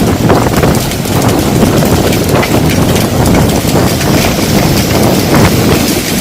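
Hailstones clattering on hard surfaces in many irregular sharp knocks, over a loud rush of wind buffeting the microphone.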